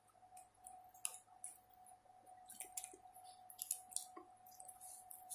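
Quiet eating sounds: scattered light clicks of a plastic fork against a plate and soft, wet chewing, over a faint steady hum.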